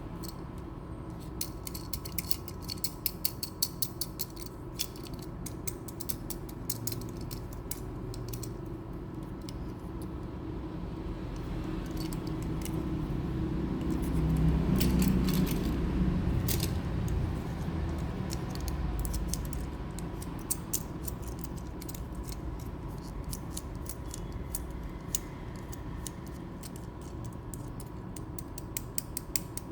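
Small parts of miniature toy construction trucks clicking, creaking and ratcheting as they are handled, in quick irregular runs of clicks. About halfway through, a low rumble swells and fades.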